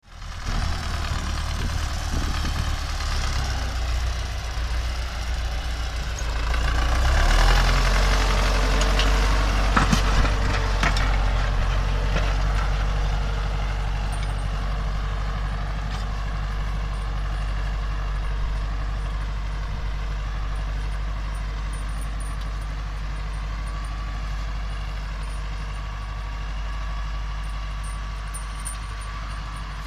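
Tractor diesel engine working steadily under load as it pulls a mounted plough through turf. It is loudest about seven to twelve seconds in, with a few sharp knocks around ten seconds, then fades slowly as the tractor moves away down the furrow.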